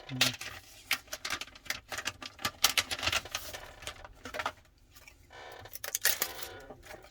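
Irregular light clicks, taps and rustles of small parts and tools being handled on a bench while a phone's replacement back glass is being fitted.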